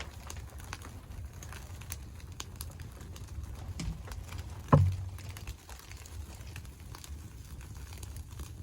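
Scattered light crackles and ticks over a low rumble, with one dull thump about halfway through.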